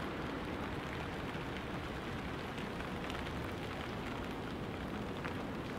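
Steady outdoor background noise: a dense, even hiss over a low rumble, with a few faint crackles.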